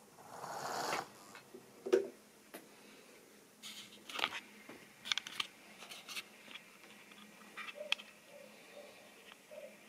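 Scattered light clicks and knocks of plastic model railway rolling stock being handled on the track, with a short rushing swell in the first second.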